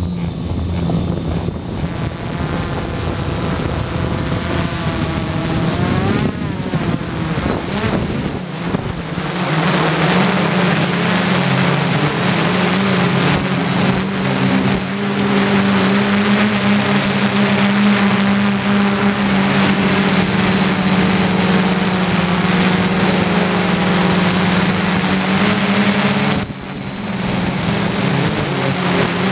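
Gaui 330X quadcopter's brushless motors and propellers buzzing, picked up by the camera on board. The pitch wavers and glides over the first several seconds as the throttle changes, then holds steady and louder, with a brief drop near the end.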